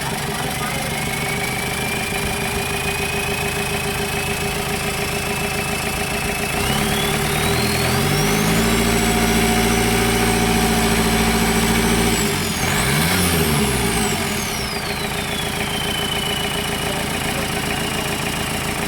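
Chevrolet Tavera engine, freshly overhauled, idling, then revved up about seven seconds in and held high for several seconds. It drops, is blipped once more, and settles back to a steady idle. A whine rises and falls with the revs.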